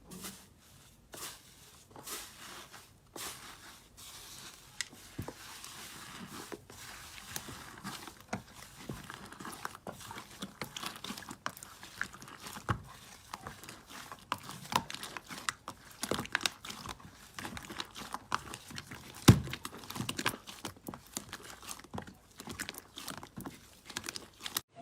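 Slime being squeezed and worked by hand, giving an irregular run of sticky clicks and crackles. The clicks are sparse at first, grow busier after about four seconds, and there is one sharper pop a little before the end.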